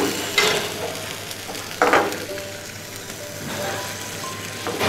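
A small pan of garlic, ginger and chopped pineapple in oil and water, bubbling and sizzling on the stove. A wooden spoon stirs it, with two louder scrapes in the first two seconds.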